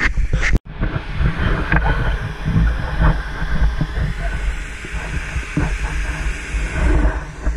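Wind buffeting an outdoor action camera's microphone: a loud, uneven rumbling noise, broken by a sudden short dropout about half a second in.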